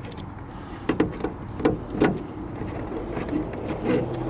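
Plastic speaker mounting ring being pressed into a car's front door speaker opening: a handful of sharp clicks and knocks as it is pushed onto the mounting clips, then lighter handling ticks.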